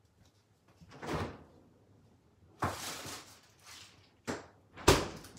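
Household handling sounds while the person is out of frame: two soft rustling swishes, then a sharp knock near the end.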